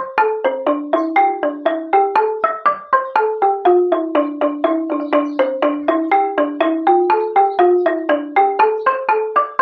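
Cambodian roneat ek, a boat-shaped xylophone with a curved keyboard, played with two padded mallets. It gives a quick, even stream of struck notes at about five a second, usually two pitches at once, with the melody stepping up and down.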